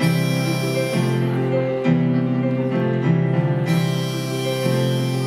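Electric keyboard and harmonica played together: held keyboard chords changing every second or so, with the harmonica dropping out for about two and a half seconds in the middle and coming back in.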